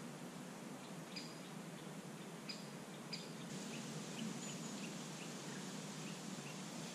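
Small birds calling: a few short, sharp high chirps about a second apart, then a quicker run of softer chirps from about halfway, over a faint steady outdoor hiss.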